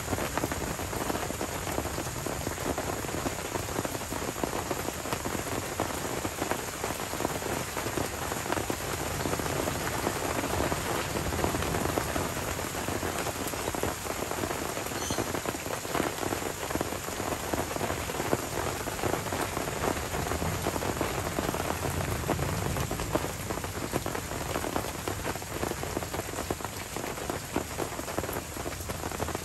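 Steady heavy tropical rain falling on forest leaves and a muddy track, a dense, even hiss flecked with countless separate drop hits.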